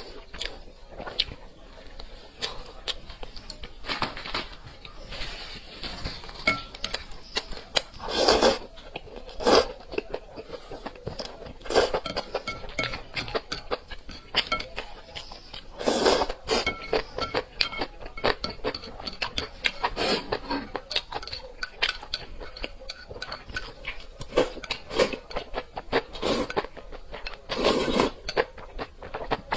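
Close-miked eating sounds: utensils clinking against dishes and a steady run of short chewing clicks. A few louder, longer eating sounds come about a third of the way in, halfway, and near the end.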